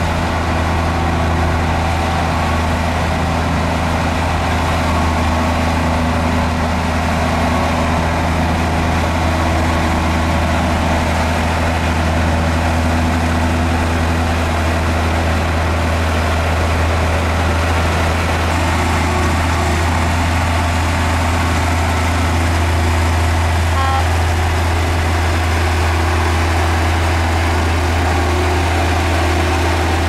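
Diesel engine of heavy earthmoving machinery running steadily at a constant speed, with no clear revving.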